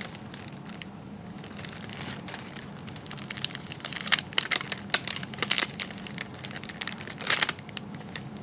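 Plastic packaging bag crinkling and crackling as it is handled and opened, in irregular bursts that are busiest in the middle and again near the end.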